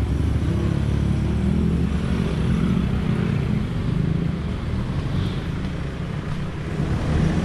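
A motor vehicle's engine running close by, a steady low drone, as from road traffic.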